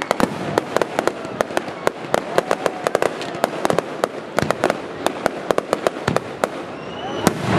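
Fireworks display: aerial fireworks bursting overhead, a dense, irregular run of sharp cracks and pops, several a second.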